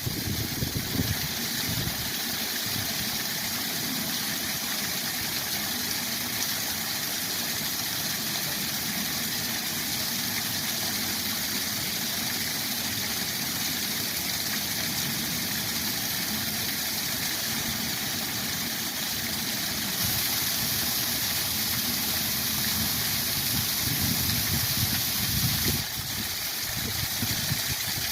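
Waterfall: a steady rush of falling water. It grows a little brighter for several seconds past the middle, then drops back.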